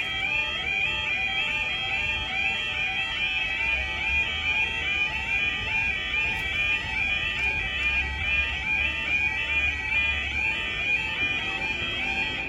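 UK level crossing's warbling yodel alarm sounding steadily in a fast repeating pattern, cutting off near the end.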